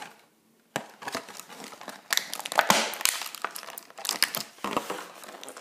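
Plastic toy packaging being handled and crinkled, an irregular run of crackles that starts just under a second in.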